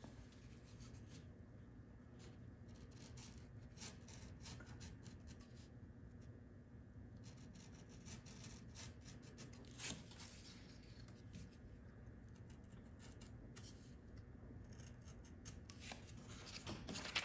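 Box cutter blade slicing through a paper template on a cardboard backing: faint, short scratching strokes in clusters, with one sharper tap about ten seconds in.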